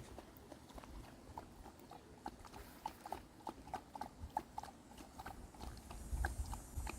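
Standard poodle lapping water: a quick, faint run of wet clicks, several a second.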